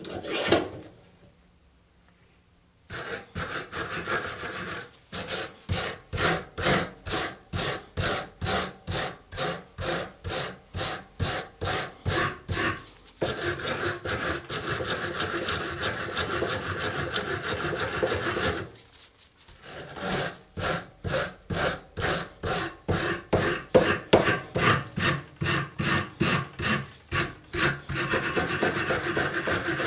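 Brass wire brush scrubbing rust off the steel frame of an antique Bulldog revolver in a vise: quick back-and-forth strokes, about two or three a second, with stretches of steady continuous scrubbing. A brief knock at the very start.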